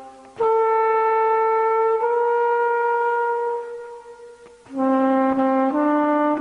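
Music: a slow solo melody on a single pitched instrument. One long note is held for about three seconds, steps slightly up partway, then fades. A new phrase of shorter, lower notes comes in near the end.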